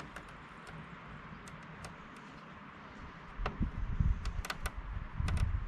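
Handling noise: faint scattered clicks and taps of small plastic parts being handled, then irregular low bumps and rumbling from about three and a half seconds in.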